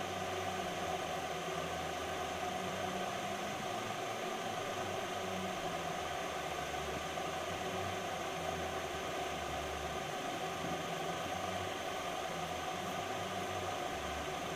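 Steady whirring background noise with a low hum underneath, as from a fan or small motor, unchanging throughout.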